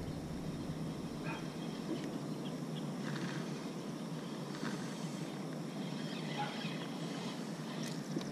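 Outdoor lakeside ambience: a steady hiss with scattered faint short chirps and clicks.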